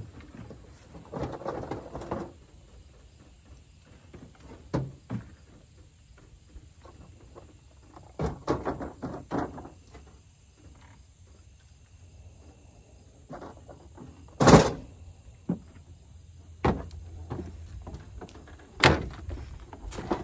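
Hand tools knocking and clinking against the metal of a combine's soybean head while its cutter-bar guards are being changed. Scattered knocks and short rattly scrapes, with one sharp, loud knock about two-thirds of the way through.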